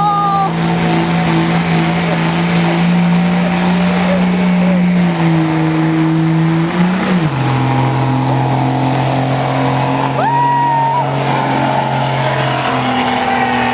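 Cummins diesel pickup engine at full throttle pulling a sled, running at a steady high pitch. About seven seconds in it drops to a lower steady pitch as it works against the load.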